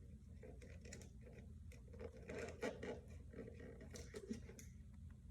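Small plastic parts and packaging being handled: light scratching and scraping with scattered clicks, a few sharper ones in the middle, as the magnetic mount clips for the motion sensors are worked out of their packaging.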